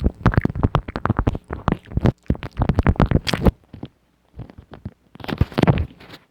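ASMR mouth sounds: rapid wet clicks and smacks in bursts with short pauses, with a denser, noisier run of them near the end.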